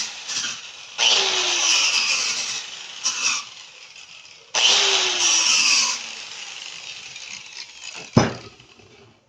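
Handheld power tool run in short bursts of about a second and a half each, starting abruptly with a falling pitch as it loads up. A single sharp knock comes near the end.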